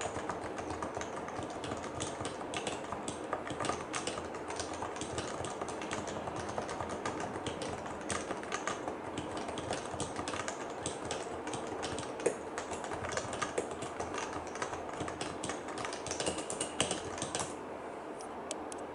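Continuous fast typing on a Leopold FC660C compact keyboard with Topre capacitive switches and PBT keycaps: a dense run of key strokes, with a few louder single strokes, thinning out slightly near the end.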